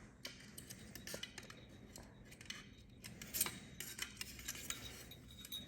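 Faint, scattered clicks and light metallic clinks of hands handling small metal parts and tools, with a slightly louder click about three and a half seconds in.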